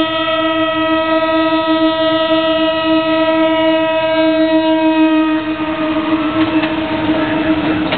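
KiHa 59 'Kogane' diesel railcar sounding one long, steady horn blast on its approach to the level crossing. The horn fades after about five seconds as the rumble of the passing train rises, with a few sharp clacks near the end.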